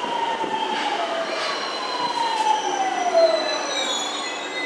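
JR East 209 series electric train pulling into the platform and braking: its traction motor whine falls steadily in pitch as it slows, over the rumble and light squeal of wheels on rail.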